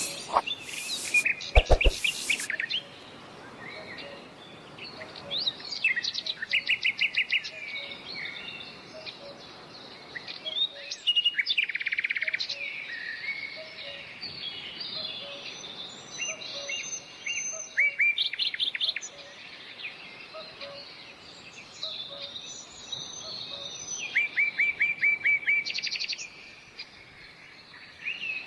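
Several birds singing in rapid, repeated trills and chirps over a steady background hiss, with a brief knock about two seconds in.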